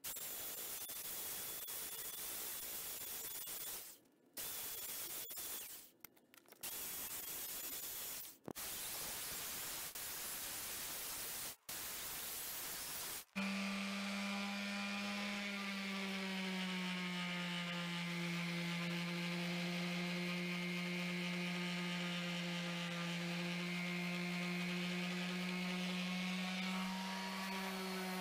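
Sandblasting cabinet's air blast hissing in long bursts, released and re-triggered several times. About 13 seconds in it gives way to a steady electric motor hum with a clear pitch that settles slightly lower at first.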